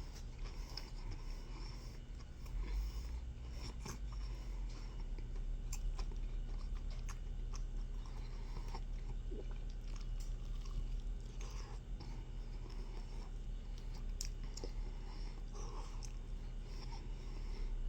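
A person chewing and biting food close by, with irregular small crunches and clicks, over a steady low hum.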